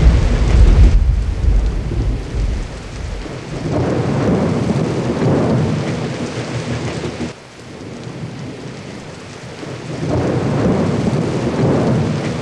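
Thunderstorm: a loud roll of thunder dying away, then two more long rumbling rolls swelling about four and ten seconds in, over a steady hiss of rain.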